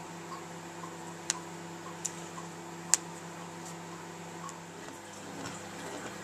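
A steady low hum with three sharp clicks, about one and a half, two and three seconds in, and faint soft ticks about twice a second.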